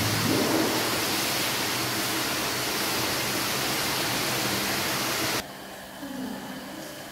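A loud, steady hiss that cuts off suddenly about five seconds in, leaving a much quieter background with faint sustained tones.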